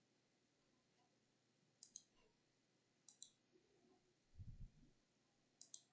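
Faint computer mouse clicks: three clicks, each a quick pair of ticks, spread over a few seconds. There is a soft low thump between the second and third.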